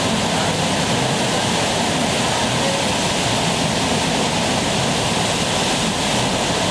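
Loud, steady rush of whitewater from the Eisbach river's standing surf wave, the fast current churning over the step in the channel.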